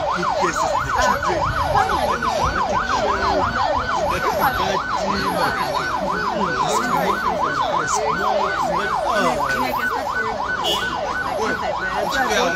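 Emergency vehicle siren in fast yelp mode, sweeping up and down in pitch about four times a second without a break, over the chatter of a crowd.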